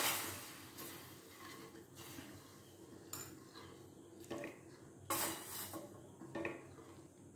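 Wooden spatula stirring sugar and water in a stainless steel saucepan, scraping and knocking against the pan a few times, loudest a little past the middle. The sugar is being dissolved into a syrup.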